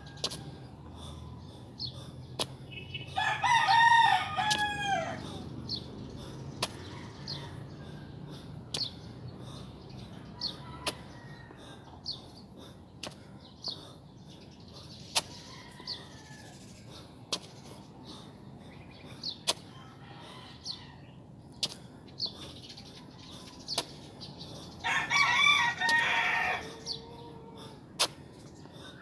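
A rooster crowing twice, a few seconds in and again near the end, each crow about two seconds long and dropping in pitch as it ends. Short sharp ticks and faint bird chirps come and go in between.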